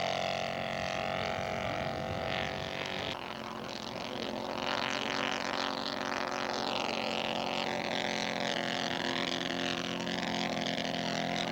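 Quarter-scale model Fokker D.VII's Laser four-stroke glow engine running steadily in flight just after takeoff. The engine note shifts in pitch and dips about three seconds in.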